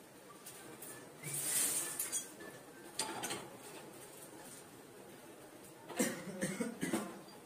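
Metal wrench clinking and scraping against the brass pipe fittings under a gas geyser as the connections are tightened: a short scrape a little over a second in, a single clink about three seconds in, and a quick run of clinks near the end.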